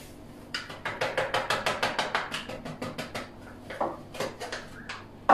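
A small spice jar shaken over a bowl of minced meat, giving a quick run of sharp clicks, several a second, for about three seconds. A few more follow, then one loud knock right at the end.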